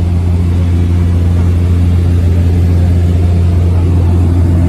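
Steady, loud drone of a small passenger plane's engine and propeller in cruise, heard from inside the cabin: an even low hum that holds one pitch throughout.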